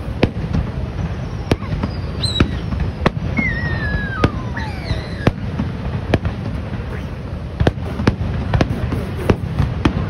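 Aerial fireworks shells bursting: a run of sharp bangs, roughly one or two a second at uneven spacing, over a continuous low rumble.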